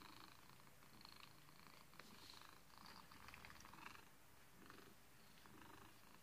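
Domestic cat purring faintly while being stroked, the purr swelling and easing about once a second.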